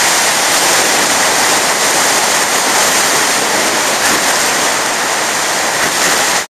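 Whitewater rapids churning close to the microphone: a loud, steady rush of water that cuts off suddenly at the end.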